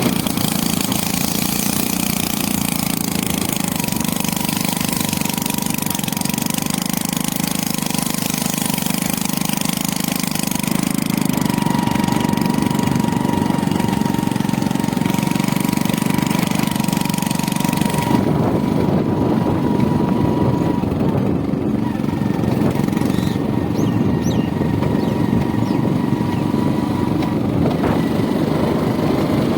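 A motor vehicle's engine running steadily, with rushing road and wind noise. The high hiss dies down about eighteen seconds in, while the engine hum goes on.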